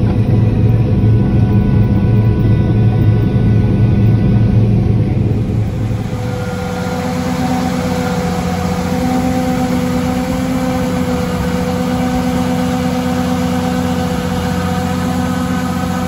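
Machinery heard from inside a cab: a steady low engine drone as a combine's unloading auger pours grain into a cart. About five or six seconds in it gives way to a tractor engine running steadily, with a steady machine whine, as it drives a grain cart's auger unloading grain into a semi trailer.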